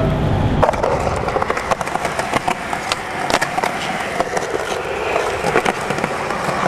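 Skateboard wheels rolling on smooth concrete, with a steady rolling noise and several sharp clacks of the board hitting the ground.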